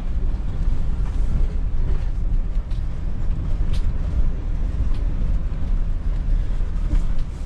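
Sprinter motorhome driving, a steady low rumble of engine and tyres on the road, with a few faint clicks around the middle.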